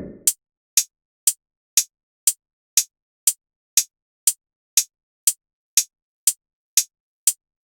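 A steady electronic tick, two clicks a second, about fifteen in a row with silence between them.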